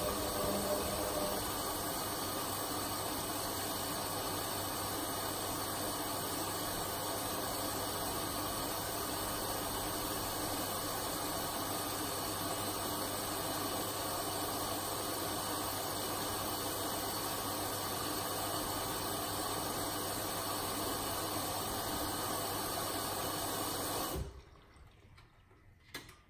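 Hotpoint WM63P washing machine taking in water: a steady hiss of water running into the machine, which cuts off suddenly about 24 seconds in, followed by a single click about two seconds later.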